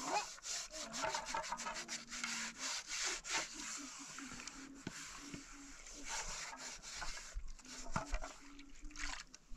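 A pan being scrubbed by hand: quick, irregular rough rubbing strokes against its surface.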